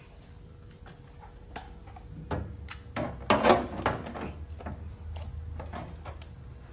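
Knocks and scrapes of a heavy battery module being turned over and shifted into place against another battery inside a motorcycle frame. A cluster of knocks about halfway through is the loudest, followed by a few lighter clicks as it settles.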